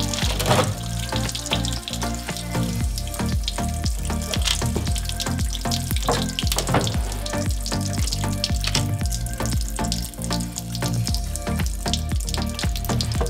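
Background music over a hissing, trickling stream of gear oil running during a rear-axle oil change, with scattered light clicks of tools.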